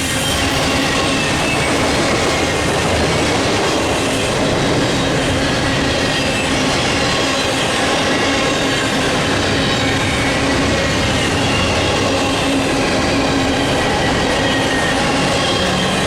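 Cars of an intermodal freight train rolling past: steady wheel-and-rail noise with faint wheel squeal.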